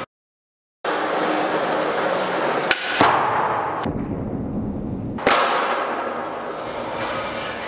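A skateboard's wheels roll on a smooth concrete floor. Two sharp clacks of the board hitting the ground come about three seconds in. The rolling noise jumps louder again about five seconds in, after a brief silence at the start.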